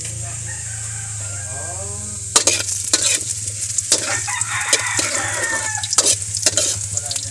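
Food sizzling in hot oil in a steel wok, then from about two seconds in a metal ladle stirring and scraping against the wok with repeated clinks. A rooster crows in the background during the first couple of seconds.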